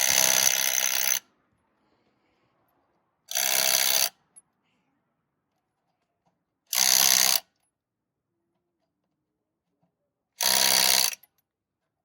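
Impact wrench running in four short bursts, one about every three and a half seconds, with silence between.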